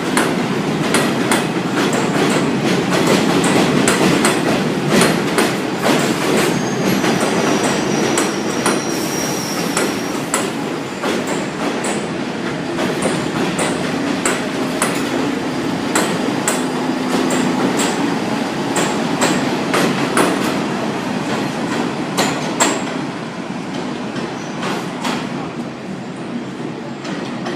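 New York City Subway train running on the Liberty Avenue Line, its wheels clacking sharply and repeatedly over the rail joints, with a faint thin wheel squeal about eight seconds in. The sound eases off near the end.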